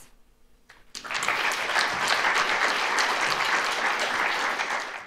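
Audience applauding, starting about a second in, dense and steady, then cut off suddenly.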